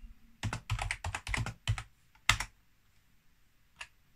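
Typing on a computer keyboard: a quick run of key presses, then one louder keystroke a little after two seconds in and a single faint tap near the end.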